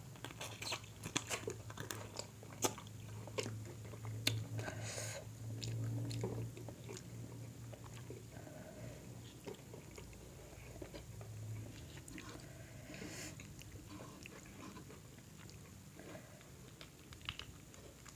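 Close-miked eating of a seafood boil by hand: biting and chewing with wet clicks and crunches, many in the first few seconds and sparser later, as shrimp are peeled and eaten. A low hum sits underneath for the first twelve seconds or so.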